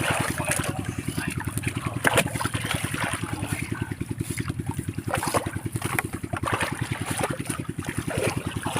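A small engine running steadily with a fast, even beat, with water trickling and a few brief splashes.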